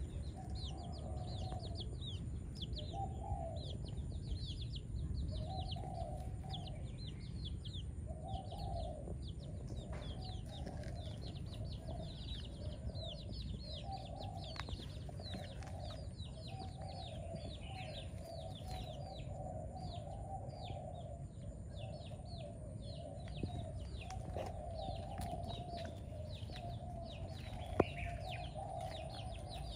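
Young chickens peeping: a rapid stream of short, falling high chirps, with lower clucking notes in runs that become almost continuous in the second half. A low steady rumble lies underneath, and a single sharp click comes near the end.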